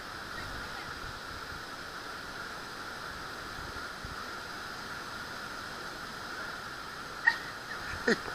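Steady rush of flowing water in a river canyon, with a short sharp sound about seven seconds in.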